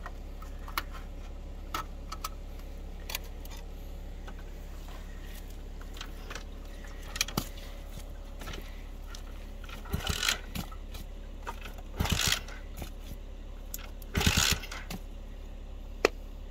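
Rusted metal parts of an abandoned 125cc mini chopper motorcycle clicking and rattling as the bike is handled, with three louder rattling scrapes in the second half, over a steady low engine hum.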